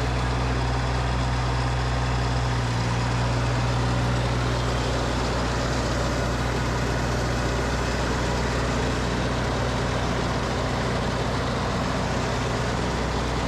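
Tractor engine running steadily while driving a snowblower, a constant low hum with a steady rush of noise over it.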